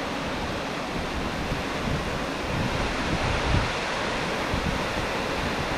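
Steady roar of rushing water from a waterfall, with wind buffeting the microphone in low gusts about two to three seconds in.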